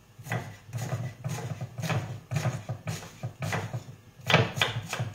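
Kitchen knife chopping an onion on a wooden cutting board: a run of irregular sharp taps on the wood, about three a second, with the loudest strokes a little after four seconds in.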